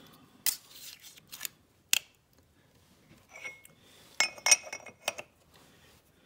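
Metal clinking against the steel milling vise and parallels: a few sharp clinks in the first two seconds, then a cluster of louder, ringing metal clinks a little past the middle as the fixture plate is set down onto the parallels.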